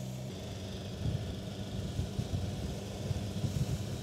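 A BMW S1000XR's inline-four motorcycle engine running while the bike is ridden. The steady engine note drops away a moment in, leaving an uneven low rumble.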